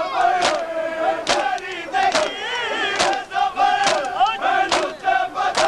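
A large crowd of mourners performing matam, open hands striking bare chests together in a steady beat of a little more than one stroke a second, about seven in all. Between the strokes many men's voices chant and shout together.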